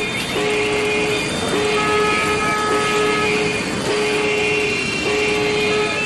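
Soundtrack music of long held tones that step to a new pitch about every second, over a steady noise.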